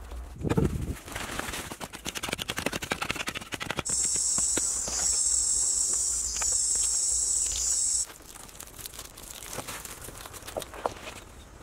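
A loud, high insect drone, such as a cicada's, sets in about four seconds in and stops abruptly about four seconds later. Around it come rustling, clicks and knocks from wooden poles being handled and lashed with rope.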